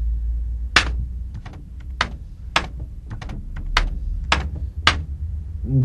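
Keystrokes on a computer keyboard: separate clicks at an uneven pace, the loudest about half a second to a second apart, over a low steady hum.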